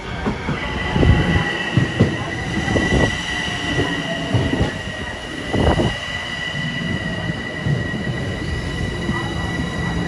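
Metro-North commuter train running past close by. A high, steady squeal or whine starts about half a second in and holds throughout, over irregular low knocks of the wheels over rail joints.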